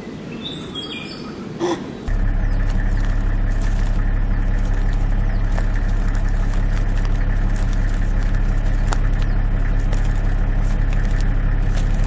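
A vehicle engine idling steadily, a loud, even low hum that comes in suddenly about two seconds in.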